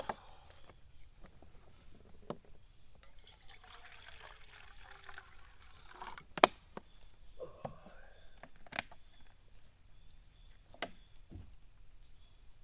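Liquid being poured into a container, with a burst of pouring from about three seconds in. Scattered clicks and taps of handling come through, the sharpest about six and a half seconds in.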